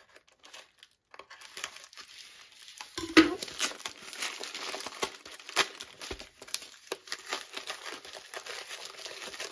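Plastic packaging crinkling and tearing as a bubble mailer and the clear plastic bag inside it are pulled open by hand, with one sharper knock about three seconds in.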